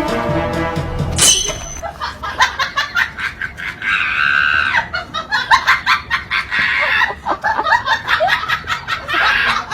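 A person laughing hard in quick, rapid bursts, with a high-pitched shriek partway through.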